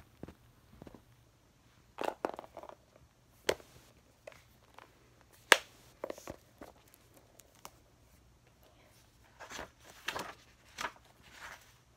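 Handling noise: a hardcover book being picked up, opened and its pages leafed through, with scattered rustles and clicks, one sharp knock about halfway through, and a run of page rustling near the end.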